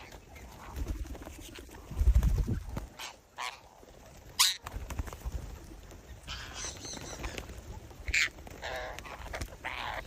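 Animal calls: a few short cries at irregular intervals, with a low rumble about two seconds in.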